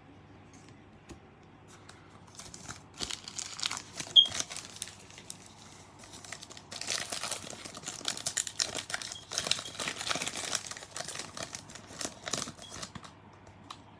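A trading-card pack wrapper being torn and worked open by hand, with bursts of crinkling and tearing and a sharp snap about four seconds in.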